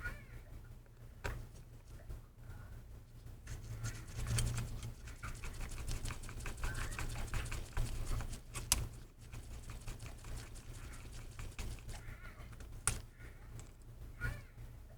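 Hands working small laptop parts: a run of crinkling and ticking from thin plastic being tucked and pressed, with a few sharp clicks, over a steady low hum.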